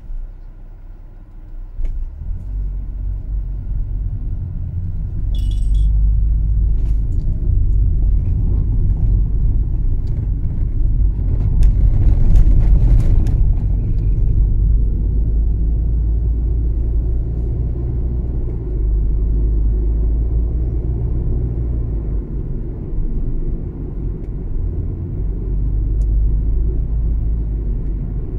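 Low rumble of a car's engine and tyre noise heard from inside the cabin. It rises over the first few seconds as the car gets under way, then holds steady, with a brief louder swell about halfway through.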